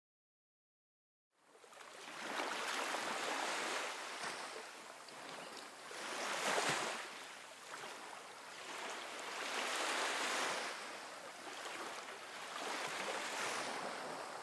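Ocean surf breaking on a sandy beach: a rushing wash that starts about a second and a half in, then swells and fades about four times as the waves come in.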